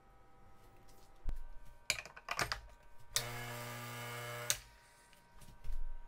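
Clicks and metal clatter of an espresso portafilter being handled, then the Gaggia Classic Pro's vibratory pump buzzing for about a second and a half with water hissing through the group head, then more clicks as the portafilter is locked into the group.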